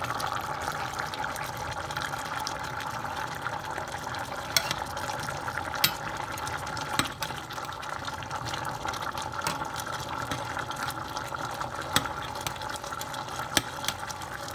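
Chicken stewing in coconut milk, simmering in an uncovered stainless-steel pot: a steady bubbling with a few sharp pops.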